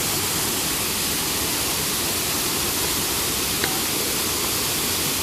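Rocky waterfall: water pouring over the rocks in a steady, loud rush, with one small click about three and a half seconds in.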